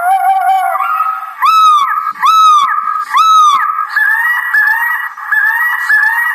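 Leaven LS-2001 electronic bird repeller playing recorded bird cries through its loudspeaker to scare starlings. Three loud, arching cries come about a second apart in the middle, then a run of shorter, quicker calls.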